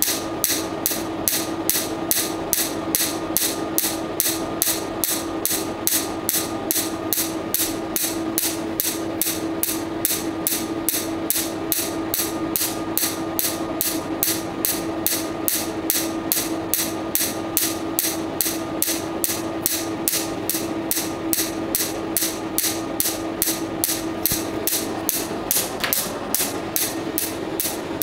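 Picosecond Nd:YAG tattoo-removal laser firing at about two pulses a second, each pulse a sharp snap as it strikes the tattoo ink, over a steady hum.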